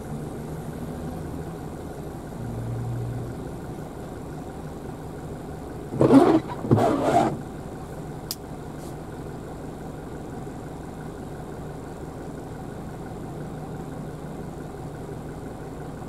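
Steady low hum of a car's engine and road noise heard inside the moving cabin, with two short louder sounds about six and seven seconds in.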